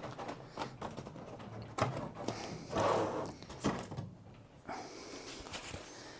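Handling noises as packing is taken out of the back of a laser cutter: scattered clicks, knocks and short rubbing scrapes.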